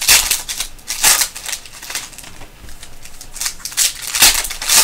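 Foil wrapper of a Panini basketball card pack crinkling as it is handled and torn open. The crinkle comes in four sharp bursts: at the start, about a second in, about three and a half seconds in, and the loudest just after four seconds.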